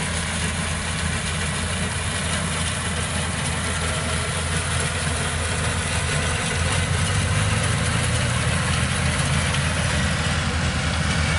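Kubota 95 combine harvester's engine and machinery running steadily as it cuts rice, growing a little louder in the second half.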